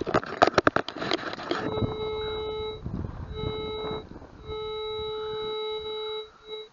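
Rustling and clicking handling noise for about a second and a half, then a metal detector sounds a steady low tone in five stretches, the longest nearly two seconds, as the coil passes over a strong target. The detectorist takes it for a large iron object such as a bar.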